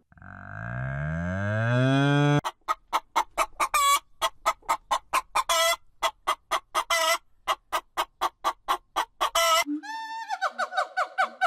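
A low animal call rising in pitch for about two seconds, then a chicken clucking: quick short clucks, several a second, broken by a few longer drawn-out notes. Near the end a different rapid, stuttering bird call takes over.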